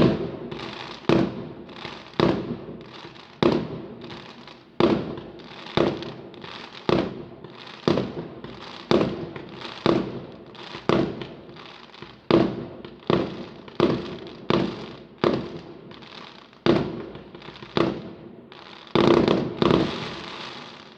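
Fireworks going off in a steady series of sharp bangs, about one a second, each echoing away, with a quicker flurry of bangs near the end before they stop.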